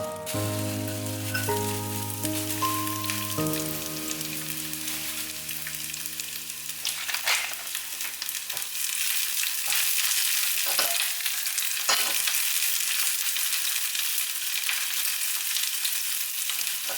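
Food sizzling in a hot frying pan, with occasional clicks and scrapes of stirring. Background music plays over the first few seconds and fades away.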